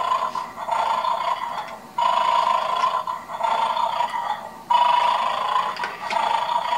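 Electronic snoring loop from a Bad Dog game's toy dog. A snore starts suddenly about every two and a half to three seconds and fades away, and it is really loud.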